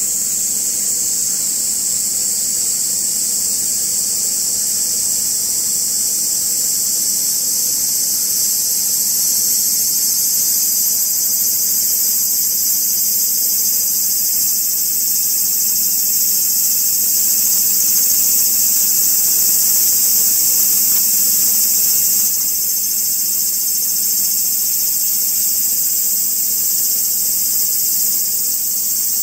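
Insects singing in a dense chorus: a continuous, steady, high-pitched shrill that never breaks, with a faint low hum beneath.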